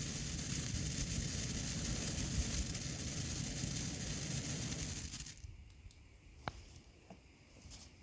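Firework fountain spraying sparks with a steady hiss and crackle that cuts out about five seconds in as it burns out, followed by a few faint pops.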